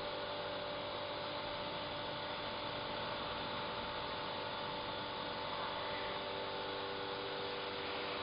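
A steady electrical hum, several fixed tones over a constant hiss, unchanging throughout.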